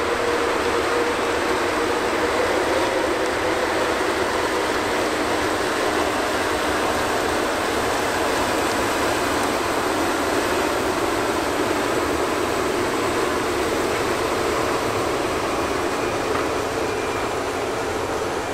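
600 hp Challenger MT875E track tractor running steadily under load as it pulls a WISHEK disc through tall, thick weeds. It is a steady engine drone that grows slightly quieter near the end as the tractor moves off.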